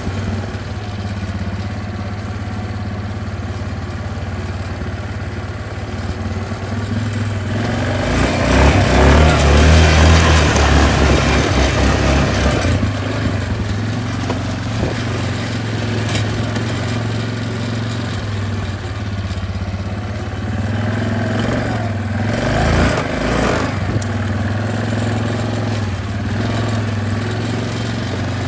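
Quad bike engine running steadily as it rides through mud, revving harder with a rush of tyre and mud noise from about eight to twelve seconds in, and again briefly near the end.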